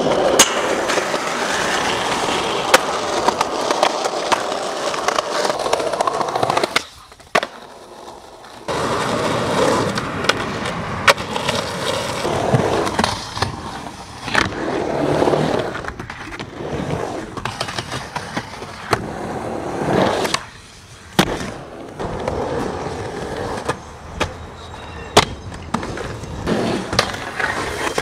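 Skateboard wheels rolling on concrete and wooden ramps, with sharp clacks of the board popping and landing and the trucks grinding along metal rails and coping. The sound breaks off briefly twice, about a quarter of the way in and again about three quarters of the way through.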